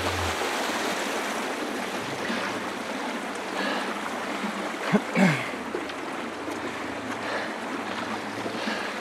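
Water rushing and lapping around sprint racing kayaks, with light paddle splashes about every one and a half seconds. A brief low falling sound about five seconds in stands out as the loudest moment.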